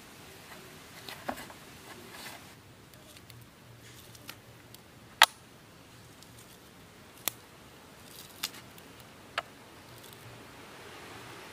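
Dried salted queen fish being pulled apart by hand: scattered sharp snaps and clicks of dry flesh, skin and bone breaking, about six in all, the loudest about five seconds in. A faint steady hiss grows toward the end.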